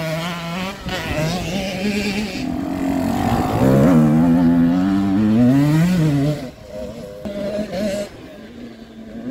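Several off-road racing motorcycle engines revving, their pitch climbing and dropping as the riders work the throttle and gears. They are loudest in the middle, then drop away to a fainter engine drone near the end.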